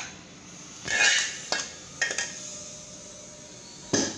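A slotted metal spoon scraping and clinking against a ceramic plate as egg keema is spread and pressed flat: a longer scrape about a second in, a few lighter clinks after it, and a sharp clack near the end.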